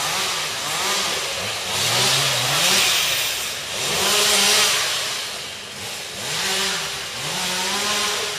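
Chainsaw engine revving up and down again and again, with louder surges of hiss about three and four and a half seconds in.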